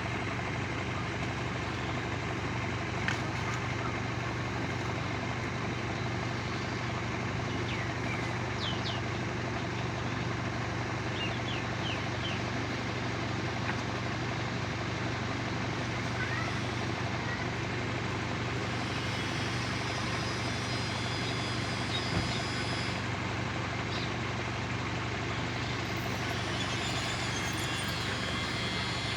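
A steady low machine hum that does not change, with a few faint bird chirps about a third of the way in.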